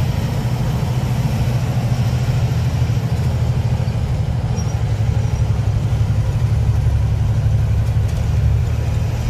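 Truck's diesel engine running steadily as it drives, a deep even drone heard from inside the cab.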